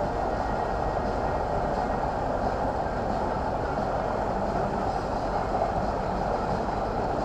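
A passenger launch boat's engine running steadily while under way, heard on board as a constant drone.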